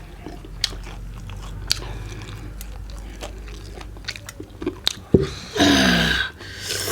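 Close-miked chewing and biting of whole roast chicken, with sharp crunches scattered through, and a louder sound lasting most of a second near the end.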